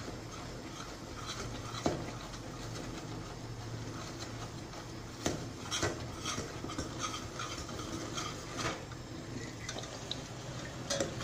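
A metal spoon stirring in a stainless steel pot, with irregular clinks and scrapes against the pot's sides over a low steady hum, as caramelized sugar and fish sauce are worked together.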